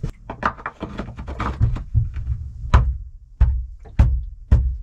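Knocks and thumps through a wooden boat hull as a bronze-style through-hull fitting is shoved into its drilled hole from outside. A quick run of small knocks comes first, then about five heavier single knocks toward the end.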